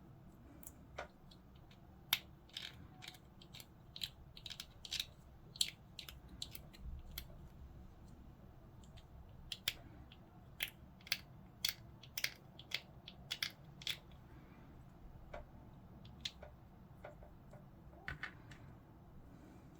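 Hobby sprue cutters snipping plastic miniature parts off the sprue: a string of sharp snips and clicks at irregular intervals, coming in bunches with pauses between.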